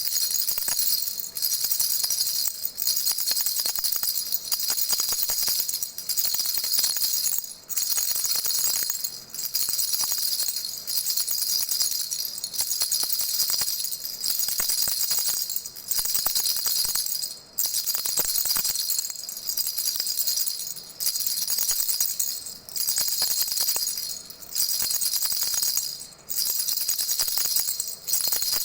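Baby rattle shaken continuously, giving a bright, high jingling in steady bouts broken by brief pauses about every one and a half seconds.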